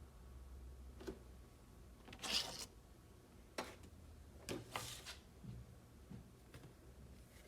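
Handling of a plastic toy computer set: a few faint scattered clicks and brief rubbing sounds.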